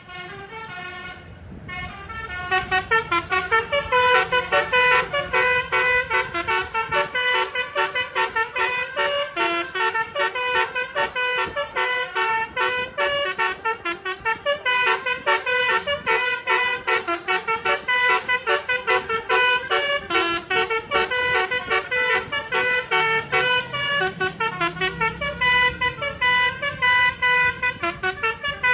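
A bus's telolet basuri horn playing a fast tune of many short pitched notes. It starts softer and turns loud about two seconds in.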